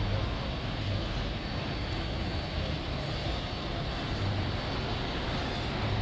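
Steady rumble of road traffic and vehicle engines, swelling slightly about a second in and again around four seconds.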